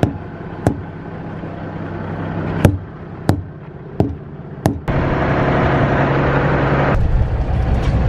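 Six sharp thumps of a tire thumper striking the semi truck's tires to check their inflation, spaced unevenly, over the diesel engine idling. About five seconds in the sound jumps to the truck driving, engine running steadily.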